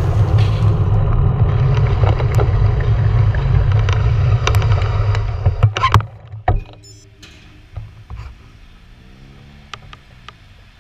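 Low rumble of wind buffeting a cyclist's GoPro microphone while riding. It falls away sharply about six seconds in as the bike slows, with a few sharp clicks. After that come scattered ticks and a faint hum.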